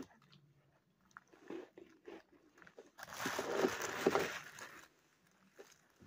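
Frozen cornstarch-and-ice block crunching and crumbling, with small scattered crackles at first and a loud crunching stretch of about two seconds around the middle as a chunk is broken off.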